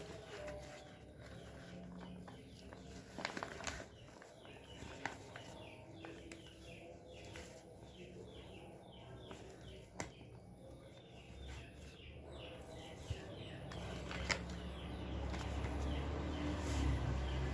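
Small birds chirping over and over in quick short falling notes, with a few sharp clicks and a low rumble building near the end.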